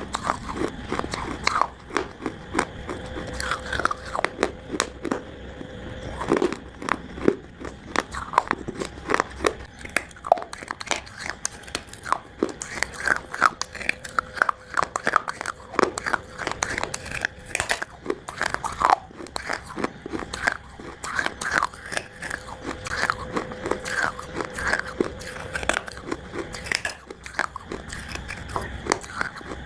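Dry Multani mitti (Fuller's earth clay) being bitten and chewed close to the microphone: a steady run of irregular, brittle crunches, several a second.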